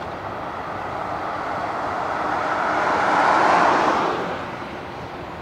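A vehicle passing by: a rushing noise builds to a peak about three and a half seconds in, then fades away.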